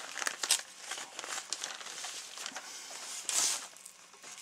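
Newspaper crinkling and rustling as a large fish lying on it is lifted and shifted, in irregular crackly strokes. There is a louder crinkle about three and a half seconds in.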